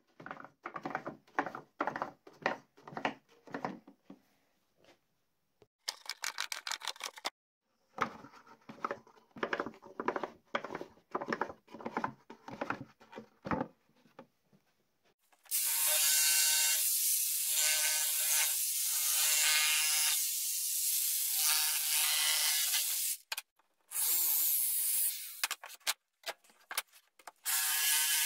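A plywood tilt mechanism with a toothed wooden sector clicks in a quick series of separate clicks as its handle is turned. About halfway through, a jigsaw starts cutting plywood. It is the loudest sound and runs in several stretches with short stops.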